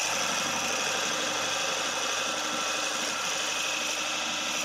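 Small metal lathe running while a boring tool cuts a shallow 20 mm bore into the end of a spinning wooden workpiece: a steady motor hum under a continuous cutting hiss.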